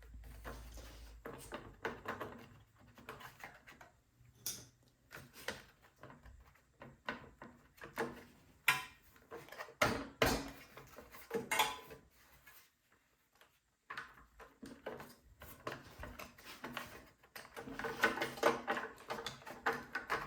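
Scattered metallic clicks, clinks and knocks of snowblower engine parts and hand tools being handled and fitted during reassembly, with a brief pause partway through and busier clatter near the end.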